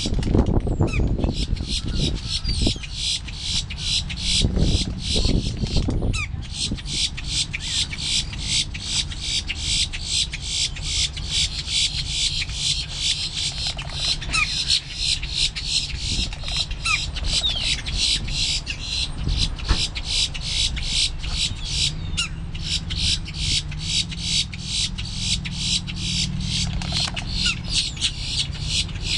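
A steady, fast, high-pitched pulsing, several pulses a second, runs throughout, with a low rumble in the first six seconds. A few short, rising high notes from boat-tailed grackles come through over it in the middle.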